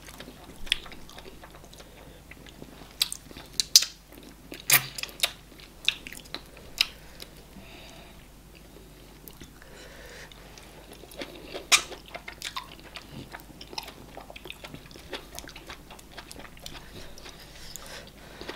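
Two people chewing eba (garri fufu) with okra soup and meat, close to the microphone: irregular sharp mouth clicks and lip smacks, loudest around four to five seconds in and again about twelve seconds in.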